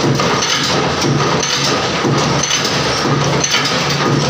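Screw-making machine for stainless steel screws running: loud steady mechanical clatter with a repeating knock about twice a second.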